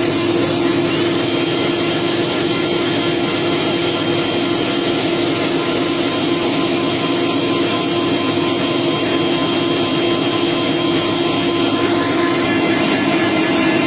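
Grain-processing machine running with a steady hum and hiss as rice grains stream from its chute.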